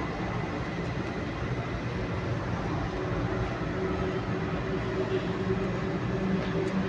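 A steady low mechanical hum with a few held tones, slowly growing louder.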